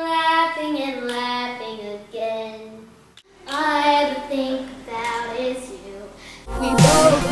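A young girl singing unaccompanied in two phrases that fall in pitch, with a short break between them, down to a low G3. A pop backing track with singing cuts in near the end.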